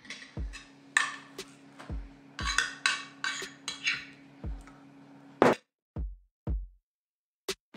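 Background electronic music with a steady drum-machine beat. For the first five seconds a steady low hum with hiss runs underneath, ending with a sharp hit.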